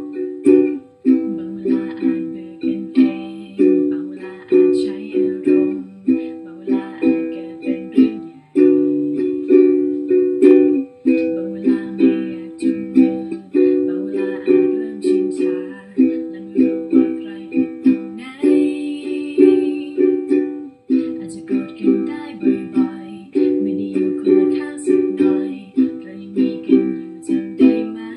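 Ukulele strummed in a steady down-down-up-up-down pattern, switching back and forth between C major 7 and G major 7 chords.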